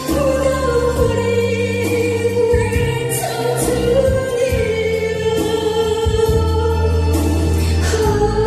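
A woman singing a Korean song into a handheld microphone through a PA, over instrumental accompaniment, holding long notes with a slight waver.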